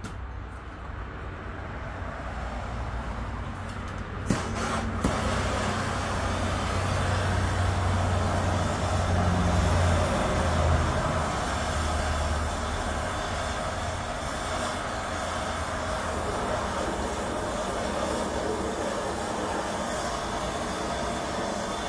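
Handheld gas torch burning with a steady hiss as its flame is played over plywood to scorch the surface. Two sharp clicks come about four seconds in, and a low rumble runs underneath through the first half.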